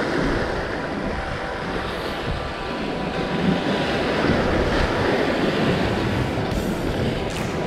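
Sea waves surging and washing over shoreline rocks, white water foaming, with a few louder hissing swells near the end. Wind buffets the microphone.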